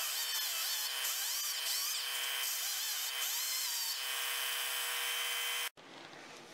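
Handheld electric grinder working the steel patch welded into a tailgate. Its motor pitch wavers up and down as the load changes, and it cuts off abruptly near the end, leaving quiet room tone.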